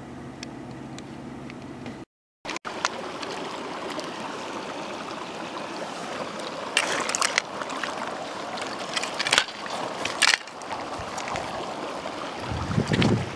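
A steady low hum cuts off about two seconds in, and a mountain stream then runs as a steady wash of water. Several short loud noises break over it in the middle, and a low rumble of mic handling comes near the end while a rainbow trout is held in a landing net at the water's edge.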